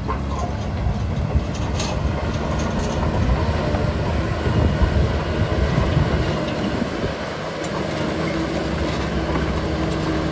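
Heavy diesel construction machinery running, a steady low engine rumble with a few sharp knocks.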